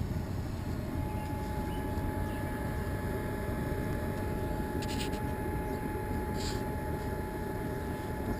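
Homemade blast furnace burning used oil, running with a steady rushing noise. A faint thin steady whine joins about a second in.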